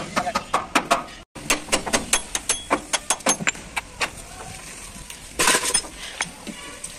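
Sharp metal clinks and taps of tools and steel parts being handled at a truck's leaf-spring hanger and shackle, with a short, louder noise about five and a half seconds in.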